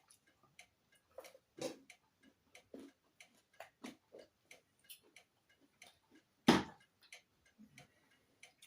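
Close-up eating sounds: irregular wet chewing and lip-smacking clicks, a few a second, with one louder sharp sound about six and a half seconds in.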